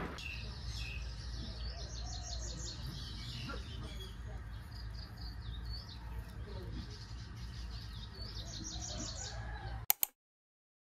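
Small birds chirping and trilling outdoors over a steady low rumble. Near the end the sound cuts off abruptly after two sharp clicks.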